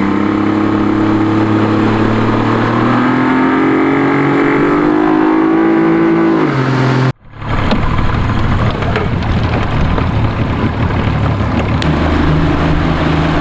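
Yamaha 50 hp outboard motor running under way; its pitch rises about five seconds in as it speeds up. It cuts off abruptly about seven seconds in, and a rougher, noisier stretch of engine and water sound follows.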